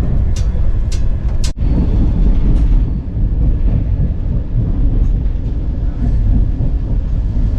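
Steady low rumble of a moving Indian Railways passenger coach, heard from inside a first-class sleeper compartment. Three sharp clicks sound in the first second and a half.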